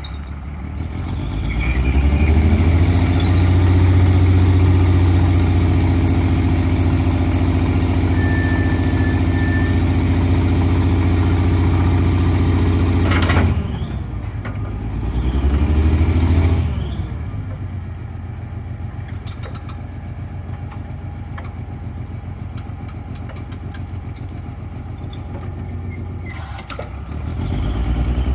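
Forklift V6 engine revving up and holding high while the hydraulics raise the mast, dropping back about halfway through, revving briefly again, then running lower and steadier before rising once more near the end.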